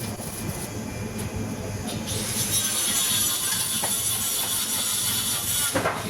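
Welding on a vehicle body: a steady high hiss starts suddenly about two seconds in and cuts off near the end, over a low rumble.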